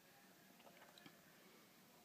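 Near silence: room tone, with a few faint soft clicks and rustles about halfway through.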